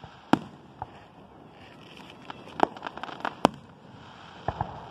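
Aerial firework shells bursting overhead: a string of sharp bangs, the loudest about a third of a second in and about three and a half seconds in, with smaller pops between them.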